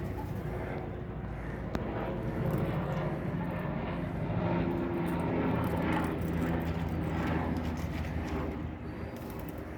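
A low, steady engine drone that swells over several seconds and fades near the end.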